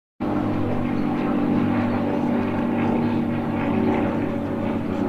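Supermarine Spitfire's V12 piston engine droning steadily as the fighter flies past overhead; the drone cuts in abruptly right at the start.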